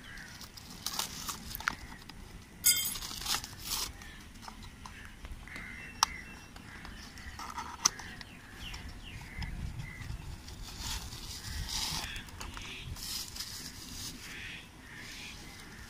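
Cardboard box being opened by hand and a selfie stick in its plastic wrap pulled out: scattered clicks and scrapes of the cardboard with plastic crinkling.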